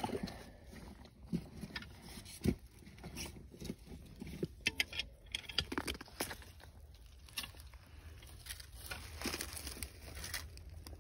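Loose creek gravel and stones crunching and clicking underfoot and under hand, in scattered, irregular clicks with no steady rhythm.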